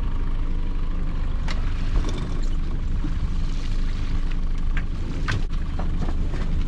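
Small fishing boat's engine running steadily, with several sharp knocks and clatter as a lobster pot is hauled up and brought aboard.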